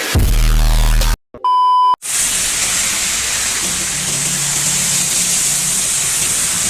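A loud low electrical buzz for about a second, then a short beep, then heavy rain hissing steadily. A low engine hum joins the rain partway through.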